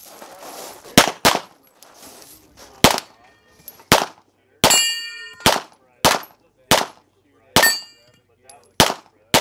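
Handgun firing about ten shots at an uneven pace, half a second to a second and a half apart. After a couple of the shots, struck steel targets ring with a clang.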